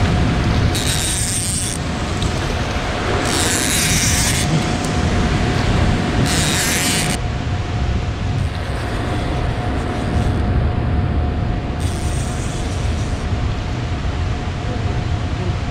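Wind buffeting the microphone with a steady low rumble, broken by three high, hissing bursts about a second long each in the first seven seconds.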